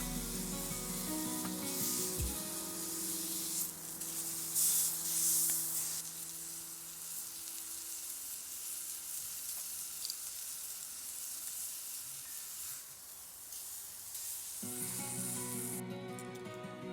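Meat sizzling and frying in a hot pan, a steady hiss that swells for a couple of seconds about four seconds in. Background music plays over the first half and comes back near the end.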